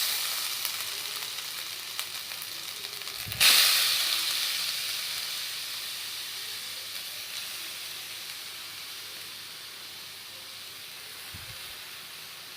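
Carrots dropped into hot ghee in a pan, sizzling loudly at once. A second load goes in about three and a half seconds in and the sizzle surges, then it slowly dies down as the carrots cook.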